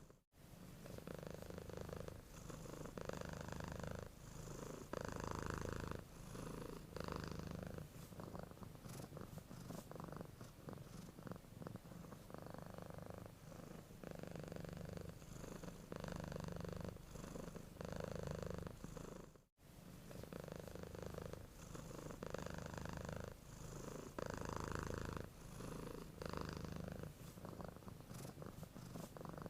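A sleeping domestic cat purring, a low rumble that swells and fades with each breath. It cuts out for a split second twice, once just after the start and once about two-thirds of the way through.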